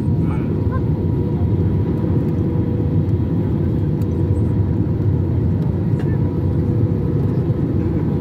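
Steady cabin noise of an Airbus A321-200 in flight: a deep rumble of engines and airflow over the fuselage, with a steady hum running through it.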